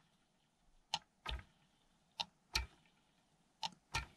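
Faint, regular ticking in pairs: a sharp click followed by a duller knock, each pair about every 1.3 seconds.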